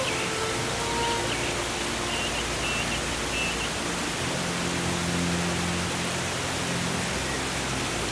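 Forest ambience: a steady, even rushing noise, with a few faint high chirps in the first two seconds.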